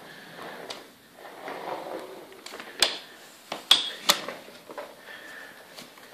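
A soft fabric suitcase being handled and shifted on a wooden floor: rustling and scraping, then three sharp clicks or knocks about three to four seconds in, followed by a few lighter ticks.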